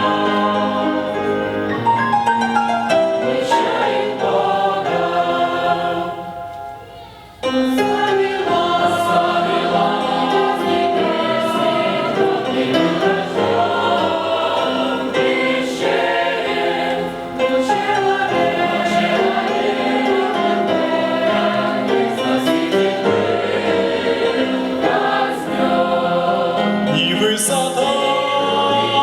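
A choir singing a Russian Christian song. The singing fades briefly about six seconds in and comes back suddenly a moment later.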